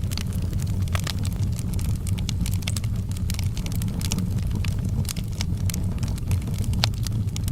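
Campfire crackling: frequent irregular pops and snaps over a steady low rumble.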